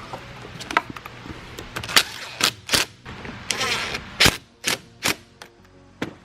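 Sharp metallic clanks and clicks of hand tools at the truck's battery terminals as the batteries are reconnected. There are about eight separate knocks, with a short rasping run about three and a half seconds in.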